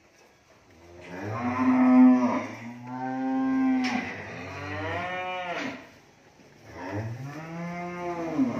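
Cattle mooing: several long, drawn-out moos one after another, with a short pause before the last one near the end.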